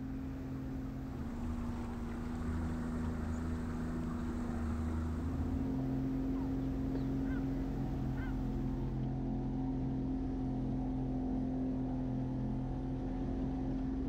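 A small motorboat's engine running steadily at speed: a droning engine note that shifts slightly in pitch a couple of times.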